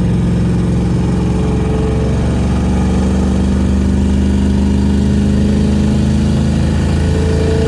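A 4.6 L V8 engine running while the vehicle is driven. Its pitch rises gradually for several seconds, then drops back near the end.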